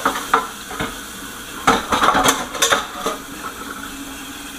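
A kitchen utensil knocking and scraping against a frying pan and plate, with a quick cluster of clatter about two seconds in, then quieter.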